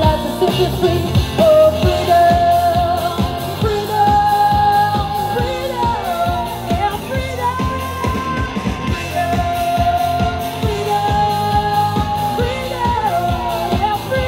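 Live pop-rock band playing: a woman singing long held notes that slide down in places, over electric guitar, bass guitar and drums.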